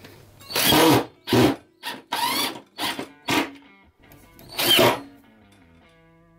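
Cordless drill run in several short bursts of the trigger, its motor pitch rising and falling with each burst, over background music whose held notes are left alone near the end.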